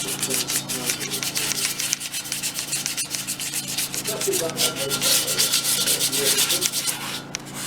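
Sandpaper being rubbed by hand on a car rim: rapid, irregular back-and-forth scraping strokes, stopping shortly before the end.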